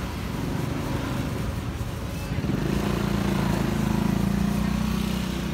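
An engine running close by, with a steady low hum that grows louder about halfway through, over general street noise.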